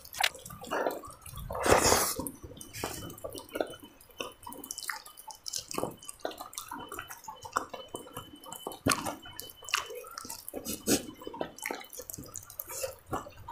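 Close-up eating sounds: chewing and fingers kneading rice on a banana leaf, many small irregular wet clicks and smacks, with one louder burst about two seconds in.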